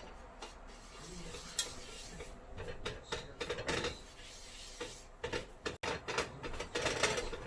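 A stirring utensil scraping and clinking against a pan in irregular strokes as gram flour (besan) is dry-roasted without ghee.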